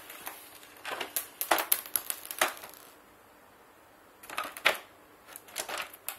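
Plastic housing of an electric rice grinder being handled and turned over on a tile floor: a quick run of sharp clacks and knocks, a short lull, then a few more knocks.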